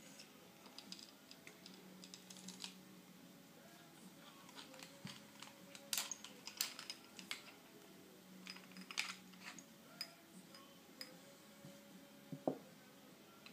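Faint, scattered metal clicks and scrapes of a SIG 1911 RCS slide being taken apart by hand: the barrel bushing twisted and the recoil spring and guide rod drawn out of the slide.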